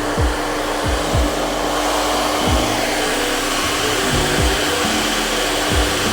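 A 1600-watt handheld hair dryer blowing steadily with an even rush of air, over background music with a low, thudding beat.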